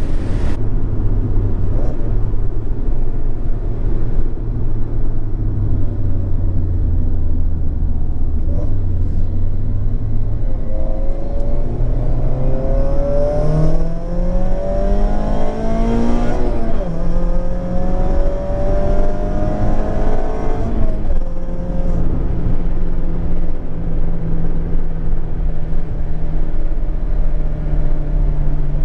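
Mazda MX-5 Miata's 2.0 L SkyActiv four-cylinder breathing through a Skunk2 Alpha 4-1 header and Remark cat-back exhaust, heard from inside the cabin: a steady cruising drone, then a little before halfway the engine note rises under acceleration, drops at an upshift and climbs again before settling back into a steady cruise. Road and wind noise run underneath.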